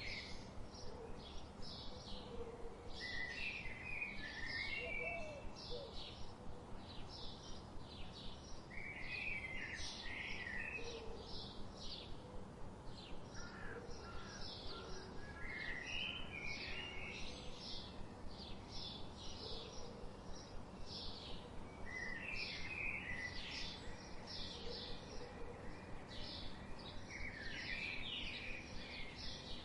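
Birds chirping: a steady run of short high chirps, about two or three a second, with a lower warbled song phrase roughly every six seconds.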